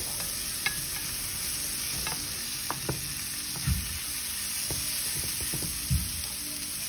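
Sliced peppers, carrot and onion sizzling steadily in hot curried oil in a nonstick frying pan as a spoon stirs them, with occasional soft knocks of the spoon against the pan.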